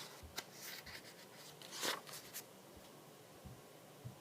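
A page of a picture book being turned: a few faint paper rustles and clicks, then one brief swish of paper about two seconds in.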